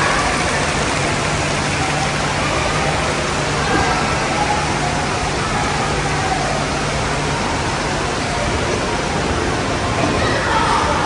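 Water splashing from small fountain jets bubbling up in a shallow indoor pool: a steady rushing hiss.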